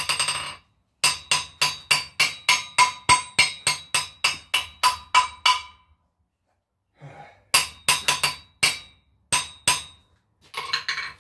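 Hammer striking the face of an anvil in a quick, even run of blows, about four a second, each with a clear ringing tone; after a short pause come a few more blows.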